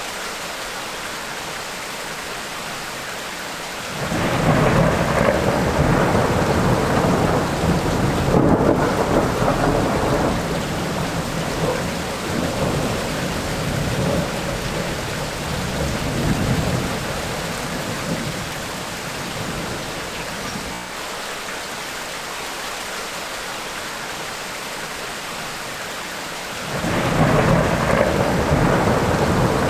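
Steady tropical rain falling, with a rumble of thunder rolling in about four seconds in and dying away over some ten seconds, then a second thunder rumble starting near the end.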